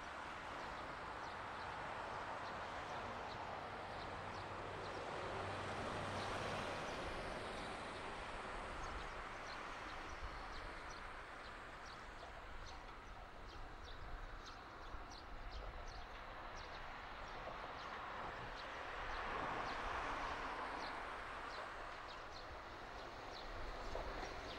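KiHa 40-series diesel railcar approaching a station: a low engine rumble under a broad hiss that swells twice and builds again near the end as the railcar nears. A short high chirp repeats about twice a second through the second half.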